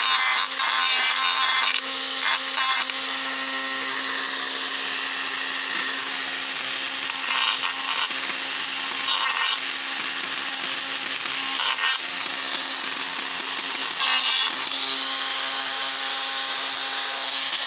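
Small handheld rotary power tool running steadily at a high whine, with a few brief scraping passes as it works on a small part of a model railroad car.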